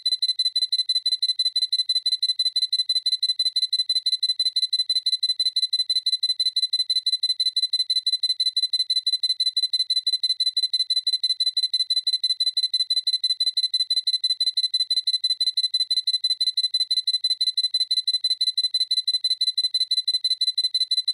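Sony A7C camera's autofocus confirmation beep: a high-pitched electronic beep repeated in rapid, even succession.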